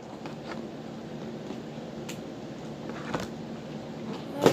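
Scissors cutting the ties that hold an action figure's neck in its packaging: a few soft clicks and snips, with a sharp loud snip near the end. A steady low hum runs underneath.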